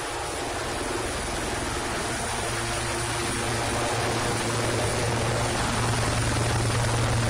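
Helicopter running up: a steady low hum over rushing engine and rotor noise, growing gradually louder.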